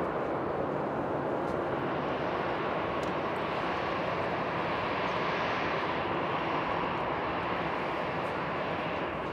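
Jet engines of a taxiing Airbus A320-family airliner running at low taxi thrust: a steady rushing hum with a whine in it, swelling slightly about halfway through.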